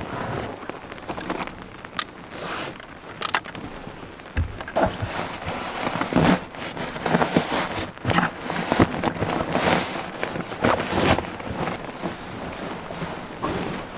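Nylon sleeping bag and stuff sack rustling and crinkling as they are handled and spread out, in irregular bursts, with a few sharp knocks early on.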